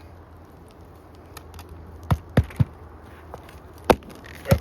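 Hammer driving roofing nails back into roof shingles: three quick blows about two seconds in, another near four seconds, and one more at the very end.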